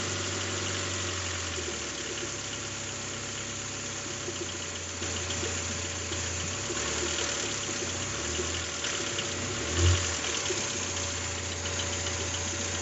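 Toyota 3S-GTE turbocharged four-cylinder engine idling with a light, evenly repeating ticking rattle, the intermittent minor noise the owner is tracking down. A brief low bump comes about ten seconds in.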